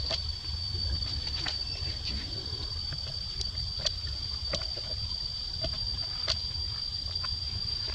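Outdoor forest-floor sound: a steady high-pitched whine with scattered light clicks and crackles of dry leaf litter as macaques move about, over a constant low rumble.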